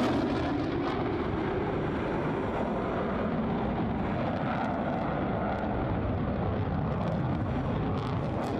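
Steady rushing jet noise of an F-22 Raptor's twin Pratt & Whitney F119 turbofan engines in flight. It is a little louder at the very start, then holds level.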